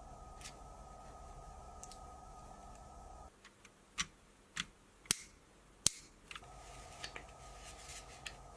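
A faint steady electric hum cuts off about three seconds in. Four sharp clicks or taps follow, about half a second to a second apart, and then the hum comes back on.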